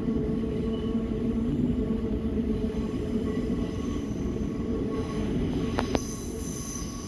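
Siemens Nexas electric train running, heard from inside the carriage: a steady rumble with a humming tone. About six seconds in come two sharp clicks, followed by a faint high squeal.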